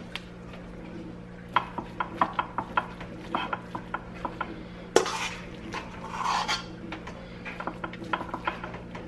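A spoon clinking and scraping against a bowl and a glass loaf pan as raw ground-beef meatloaf mix is scooped out. There are runs of quick light clicks, a sharp knock about five seconds in, and a short scrape just after.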